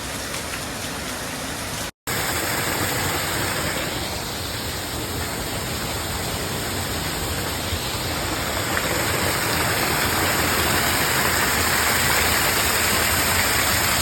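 Steady rushing of river water over rocks, growing a little louder toward the end, with a sudden brief dropout about two seconds in.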